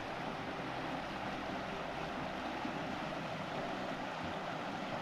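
Shallow mountain creek running over rocks: a steady, even rush of water.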